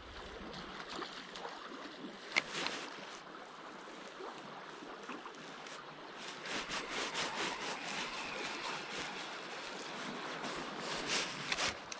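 Small river current flowing steadily, with scattered short clicks and rustles from close handling, the sharpest about two and a half seconds in and a cluster near the end.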